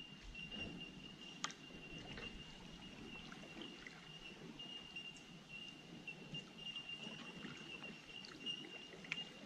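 Faint kayak paddling: paddle blades dipping and water swishing around the hull, with a thin steady high tone over it and a sharp click about a second and a half in.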